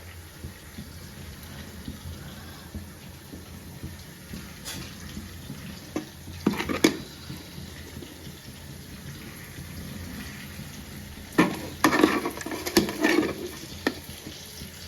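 Boiled chicken pieces deep-frying in hot oil with a steady sizzle. A utensil knocks against the pan a few times near the middle and again in a cluster near the end.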